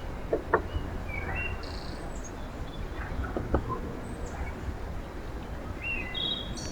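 A few scattered short bird chirps and brief calls over a steady low outdoor rumble.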